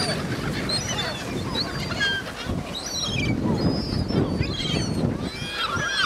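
A large flock of gulls calling while being fed: many short, high calls overlapping, fewer near the middle and thickening again at the end. A low rumble runs underneath, strongest about halfway through.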